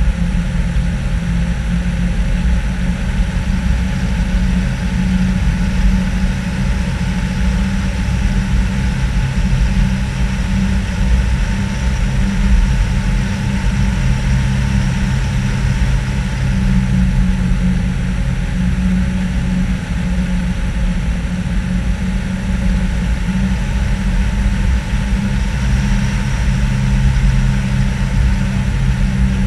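Nissan Patrol GR engine running steadily at cruising speed, a low drone with tyre and wind noise, heard from the bonnet.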